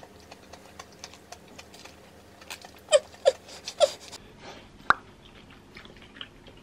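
Close-up eating sounds as a gochujang-glazed chicken drumette is bitten and chewed: soft chewing with a few short, wet mouth smacks about three to four seconds in, and one sharp click just before five seconds.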